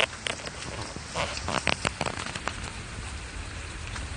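Steady rain falling, with a few short sharp sounds in the first two seconds.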